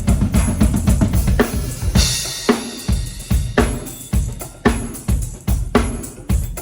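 Drum kit played in a steady beat: bass drum and snare hits about twice a second, with cymbals.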